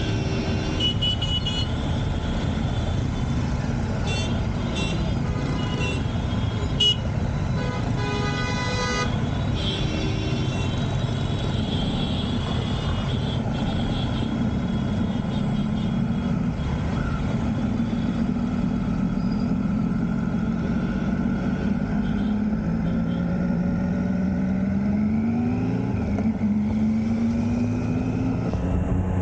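Busy road traffic with several vehicle horns honking in the first few seconds. Then a Triumph Street Triple RS's three-cylinder engine pulls away and accelerates, its pitch climbing, dropping at a gear change and climbing again near the end.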